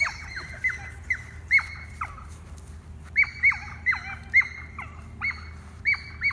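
Repeated short, high-pitched animal calls, each one briefly level and then dropping sharply in pitch, coming in uneven runs of about two or three a second with a pause near the middle.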